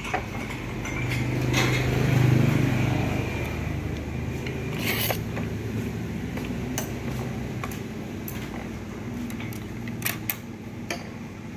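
Chopsticks clicking lightly a few times against a ceramic plate and bowl while bean sprouts are added to a bowl of pho. Under it runs a steady low hum that swells and fades in the first three seconds.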